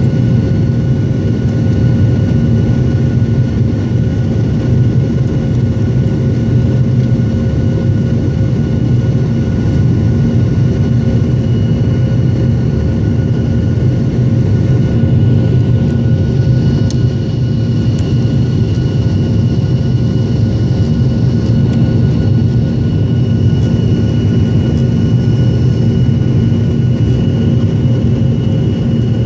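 Steady cabin drone of a Boeing 737-700's CFM56-7B jet engines during the climb after takeoff: a low hum with several steady tones over a rush of noise. A faint high whine joins about halfway through.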